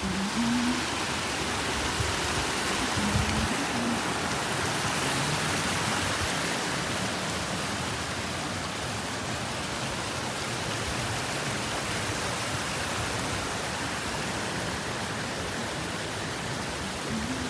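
Steady rushing of a fast mountain stream tumbling over rocks, an even unbroken wash of water noise.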